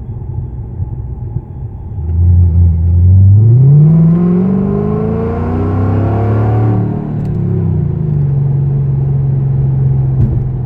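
Exhaust of a 2005 Mercedes-Benz E55 AMG's supercharged 5.4-litre V8 with long-tube headers, heard from inside the cabin during a quarter-throttle roll-on from 20 mph. About two seconds in the note gets louder and climbs in pitch as the car pulls; about seven seconds in it eases back to a steady lower cruising note.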